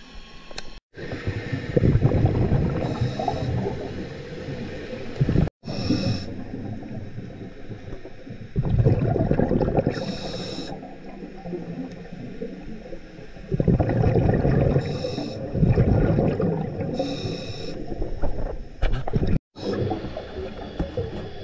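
A diver breathing through a regulator underwater: three long bubbling exhalations, each lasting several seconds, with short hissing sounds mixed in.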